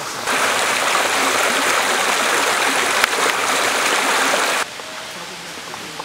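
Rushing water, an even hiss that drops suddenly to a quieter level about four and a half seconds in.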